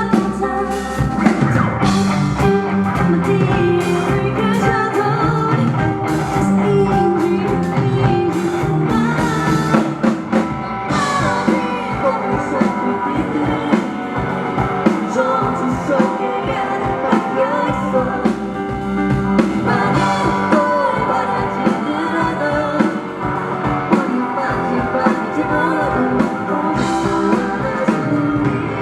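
Rock band playing live: a sung lead vocal over electric guitar, bass guitar, drum kit and keyboard.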